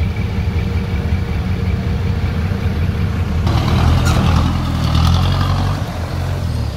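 Off-road 4x4 vehicle's engine running steadily. About halfway through, a louder, wider rushing noise joins in over it.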